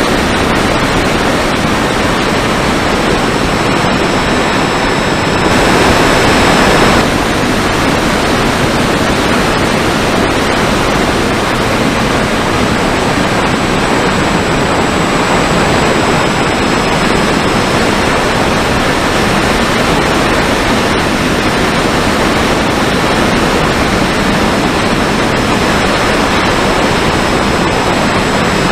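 Wind rush and propeller noise picked up by the onboard camera microphone of a Mini Talon electric fixed-wing RC plane in flight, with a faint high motor whine that drifts slowly in pitch. It gets louder for a second or so about six seconds in.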